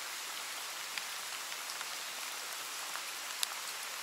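Steady rain falling, an even hiss scattered with single drops ticking close by. One sharper tick comes about three and a half seconds in.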